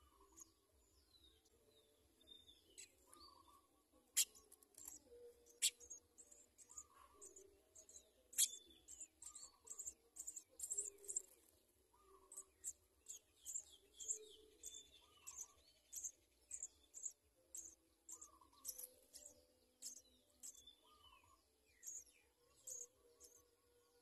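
House sparrow nestlings begging at the nest: a fast, uneven run of thin, high chirps that is densest about ten seconds in, with a few sharp, louder clicks between about four and nine seconds. Short, lower bird notes recur every couple of seconds beneath them.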